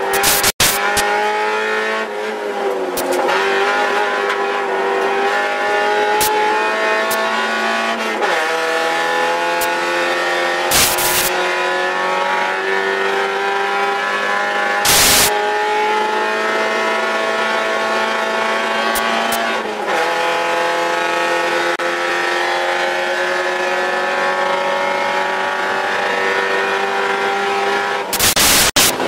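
Mazda Miata race car's four-cylinder engine, heard from inside the cabin under hard acceleration, its pitch climbing steadily through long pulls and falling back three times. Brief loud thumps break in about 11 and 15 seconds in, and again near the end.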